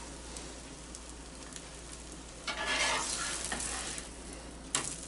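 A spatula scraping and sliding fried eggs across the nonstick surface of a Blackstone 17-inch electric griddle, over a faint sizzle. There is a longer scrape about two and a half seconds in and a sharp tap near the end.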